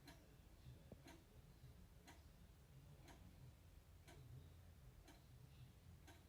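Near silence with a faint, regular tick about once a second.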